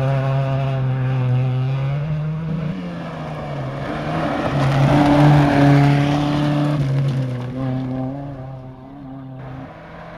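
Rally cars at full throttle on a gravel stage. An engine holds a high, steady note, drops away, then a car passes close about five seconds in, the loudest part, with its engine held high over the rush of tyres on loose gravel. The sound then fades to a quieter engine note near the end.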